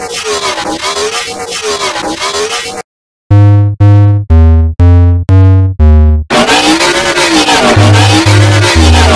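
Electronic music: a dense, noisy synthesizer texture with pitch that wobbles up and down about twice a second. It breaks off for half a second about three seconds in, then six loud separate synth notes hit over heavy bass. The noisy wobbling texture then returns over a stepping bass line.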